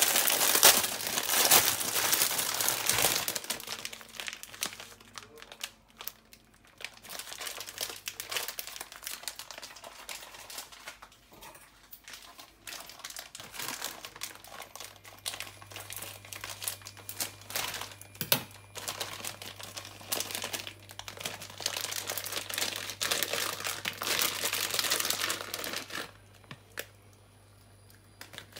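Plastic wrapping of a pack of udon noodles crinkling as it is handled and opened, in several spells with pauses between. Loudest in the first few seconds.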